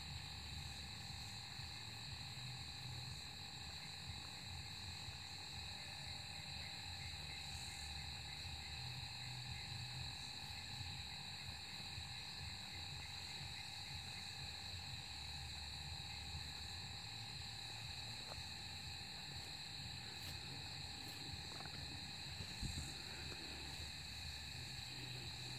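Steady night chorus of crickets and other insects, several high even pitches running on together with a quick pulsing trill for a few seconds. Under it a low uneven rumble of handling noise on the phone microphone, and a short knock near the end.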